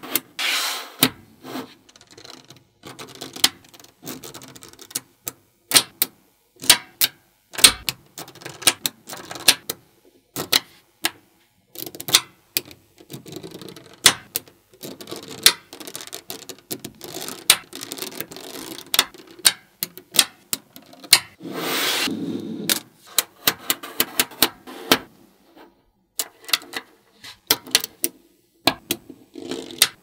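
Small magnetic balls clicking as they snap onto one another and onto a built-up slab: sharp, irregular clicks with softer rattling as strands are laid down, and a longer clattering rattle about twenty-two seconds in.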